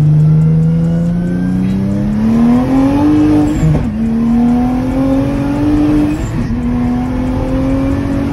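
Nissan VR30 3.0-litre twin-turbo V6 in a swapped 370Z accelerating hard, heard from inside the cabin. The engine note climbs steadily, drops with an upshift about three and a half seconds in, climbs again, and drops with a second upshift around six and a half seconds before climbing once more.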